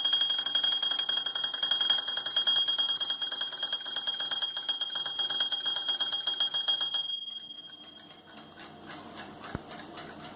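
Jerger alarm clock ringing in a rapid, even rattle, then stopping abruptly about seven seconds in.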